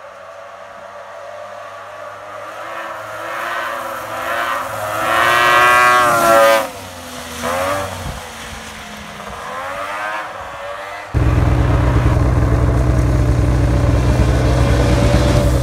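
Home-built tracked snow buggy's engine approaching and passing close by, its pitch rising and falling as it revs, loudest about six seconds in and then fading away. About eleven seconds in the sound cuts abruptly to a loud, steady low rumble.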